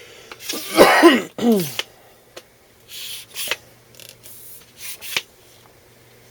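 A man clearing his throat: two loud vocal sounds with falling pitch about a second in. This is followed by a few light clicks and rubs from handling the brass retriever's loose handle.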